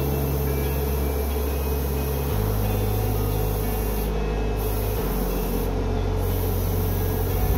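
Slow ambient background music: sustained low notes that move to a new chord about every two and a half seconds, over a steady hiss.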